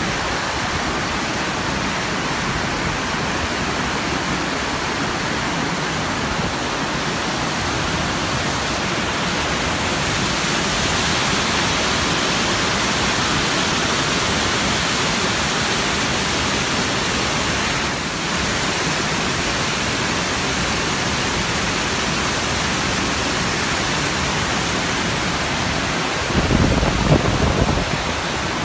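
River water pouring over a low dam's spillway and churning against boulders below, a steady rush that grows louder for a while in the middle. A brief low rumble comes near the end.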